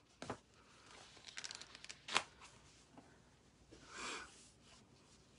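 Quiet handling noise as a phone is set up for recording: soft rustles and a quick run of small ticks, a sharper click about two seconds in, and a short rush of noise near the end.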